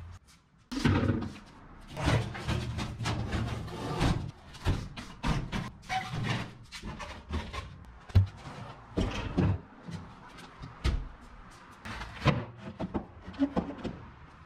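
Irregular clunks, knocks and scrapes of a sheet-metal filing cabinet, a tire and a wooden cornhole board being shifted and set in place on a concrete floor.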